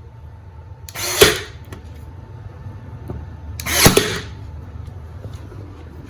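Nail gun firing twice, about a second in and again nearly three seconds later, driving nails through a dry erase board into the wall studs; each shot is a brief rush ending in a sharp crack.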